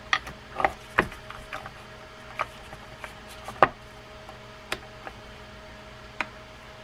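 Irregular sharp clicks and taps of metal reel parts as the line guide shield is worked into the pinholes of the side plates on a Penn Peer 209 levelwind reel frame, about seven clicks spread unevenly, the loudest a little past halfway.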